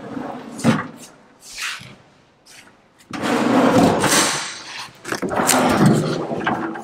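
Drawers of a stainless-steel drawer fridge sliding on their runners, with a sharp click about a second in and then two longer sliding rushes.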